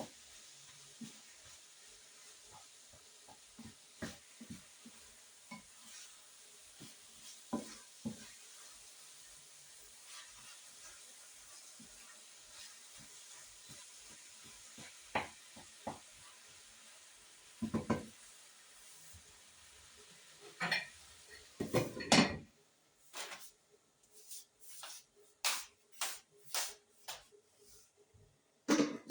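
Food sizzling in a frying pan while a utensil stirs and clinks against it. About 22 seconds in the sizzle stops suddenly, and a quick run of sharp clinks and knocks of utensils and dishes follows.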